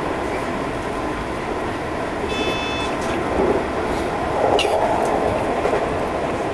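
JR East 205 series electric commuter train running, heard from the driver's cab: a steady rumble of wheels on rail, with a brief high tone about two and a half seconds in and a sharp click about four and a half seconds in.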